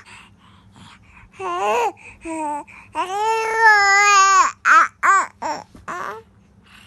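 Infant vocalizing in high-pitched cries and babble: a couple of short calls, one long held wail about three seconds in, then a quick string of short bursts.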